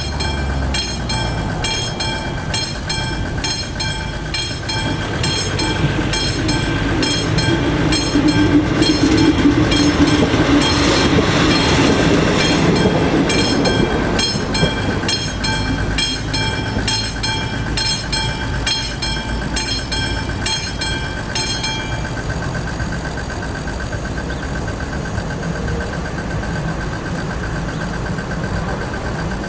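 Level-crossing warning bell (AŽD 71 crossing with a classic mechanical bell) ringing in a steady rhythm while a ČD class 814 RegioNova diesel railcar runs over the crossing. The train is loudest about 8 to 13 seconds in. The bell stops about 22 seconds in.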